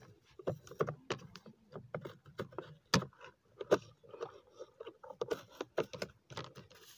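Irregular light clicks and knocks of hard plastic, as the curved perforated back plate and tank of a battery knapsack sprayer are handled and moved against each other.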